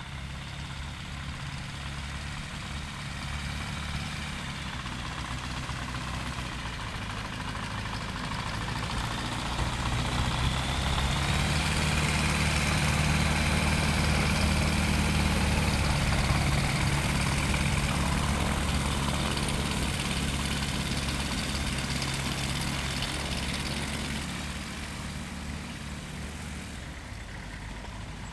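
Aeroprakt A-22 LS ultralight's propeller engine running steadily as the plane taxis on grass. It grows louder about ten seconds in and fades again after about twenty-four seconds.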